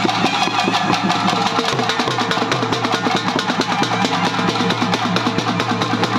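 Festival music: fast, dense drumming with sustained steady tones held over it.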